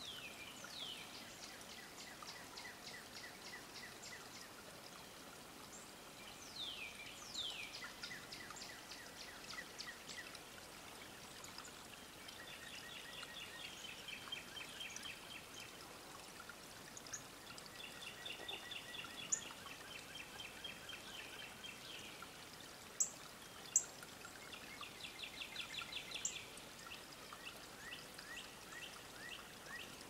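Several songbirds singing: fast descending whistled sweeps, trills of rapid repeated notes and short high chips, over a steady hiss. About two-thirds of the way through, two sharp clicks under a second apart stand out as the loudest sounds.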